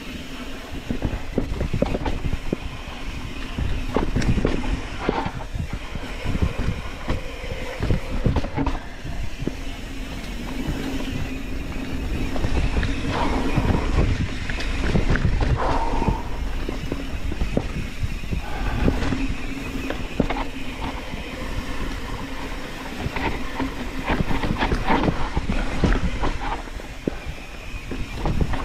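Mountain bike rolling fast down a dirt singletrack: knobby tyres on the trail and the chain, frame and suspension rattling over bumps in irregular clatters, with wind rumbling on the microphone.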